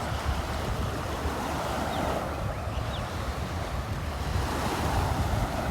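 Steady rush of water with wind buffeting the microphone.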